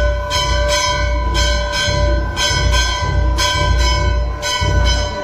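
Hindu temple bell rung in a steady rhythm, two quick strokes about every second, each stroke ringing on, with a deep low beat keeping time underneath.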